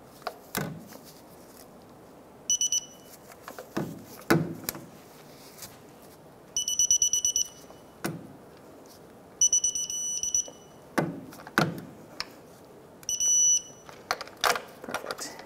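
Electronic beeping from a digital torque wrench as the starter's top mounting bolt is tightened to 37 foot-pounds: four runs of quick pulsed beeps, the last a short steady tone, the wrench's signal that the set torque is reached. Between the beeps come a few knocks of the tool against metal.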